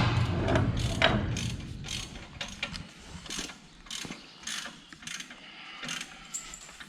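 Irregular metallic clicks and knocks of hands-on work on a tractor's quick hitch, with a low rumble dying away over the first couple of seconds.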